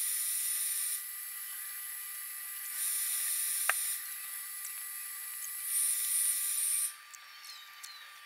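A 15 W UV laser marking machine engraving glass, running with a steady high-pitched hiss. The hiss swells louder for about a second at a time, three times, with a single click near the middle, and drops quieter for the last second or so.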